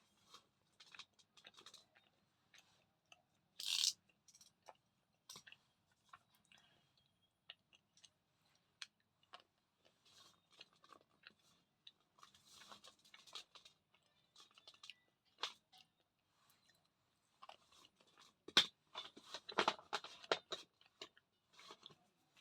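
Close-up crunching and chewing of a thick Chandni slate pencil eaten dry: scattered brittle crackles, one louder crunch about four seconds in, and a dense run of crunches near the end.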